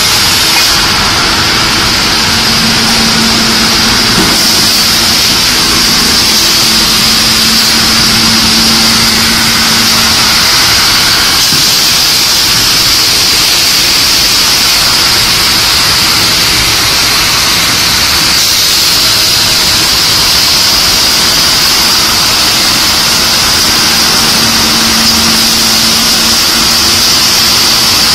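Particle board sanding line running: wide-belt sanding machines and roller conveyors make a loud, steady industrial noise, a high hiss over a low hum.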